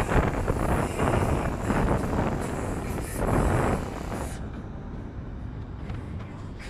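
Wind buffeting the microphone over the rush of water along a sailboat's hull while it sails, in loud gusts that ease off about four seconds in.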